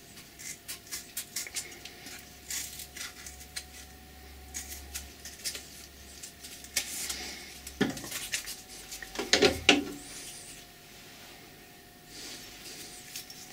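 Scissors snipping a strip of felt for a lathe bed wiper, a quick run of small cuts, followed by scattered metal clicks and knocks as the felt is handled and fitted into the carriage's wiper holder, loudest about nine seconds in.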